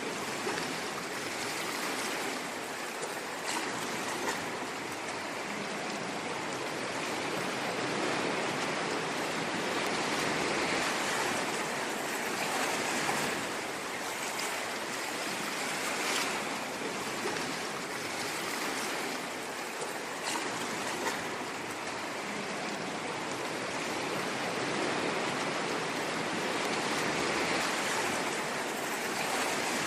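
Ocean waves breaking and washing on a shore in a steady rush, swelling and easing gently every few seconds.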